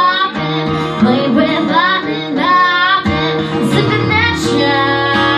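A woman singing a country song with guitar backing, her voice sliding and wavering through drawn-out notes.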